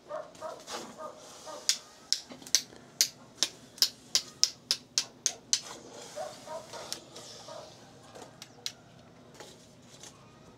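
Rapid sharp tapping, about fifteen taps at roughly four a second over four seconds, then a couple of fainter taps: the hardened borax slag being knocked off the smelted gold button.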